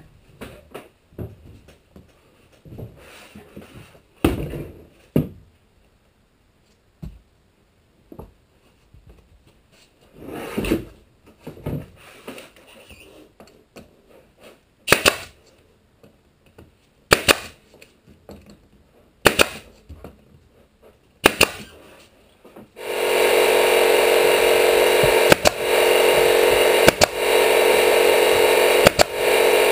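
Pneumatic nail gun firing single sharp shots, a second or more apart, tacking a thin plywood skin panel down onto the frame. About two-thirds of the way through, the air compressor starts and runs steadily, with a few more shots over it.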